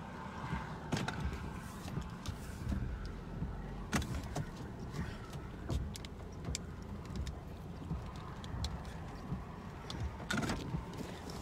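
Steady low rumble of a vehicle heard from inside the cab, with scattered light clicks and knocks; the sharpest come about a second, four seconds and ten seconds in.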